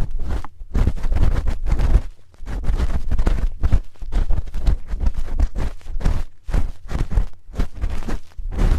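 Close-miked scraping and rubbing of a spoon at a microphone's ear for ASMR ear cleaning, in quick uneven strokes, about two to three a second, with brief pauses about two and four seconds in.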